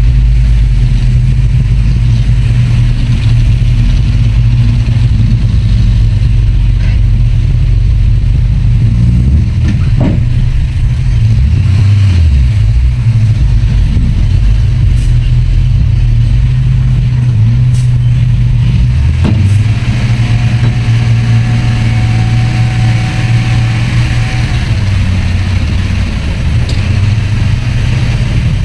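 Heavy diesel engine of earthmoving machinery running steadily with a deep drone, with a couple of short knocks about ten seconds in and again near twenty seconds, and a faint thin whine for a few seconds after that.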